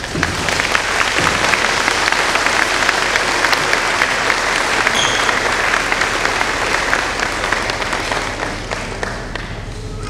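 Audience applauding, a crowd clapping steadily and tapering off near the end.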